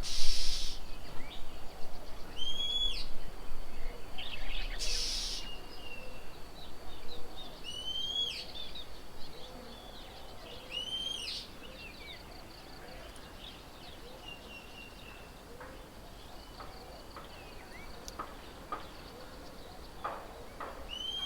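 Wild birds calling around a garden bird table. One bird repeats a high call that rises then falls, every two to three seconds, over fainter low notes. Two brief rushes of noise come near the start and about five seconds in.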